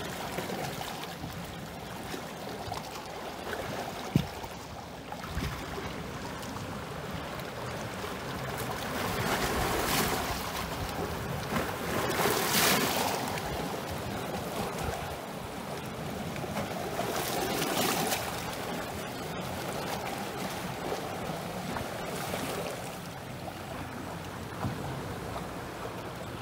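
Small lake waves washing and splashing against the rocks of a stony shoreline, swelling louder several times as bigger waves come in.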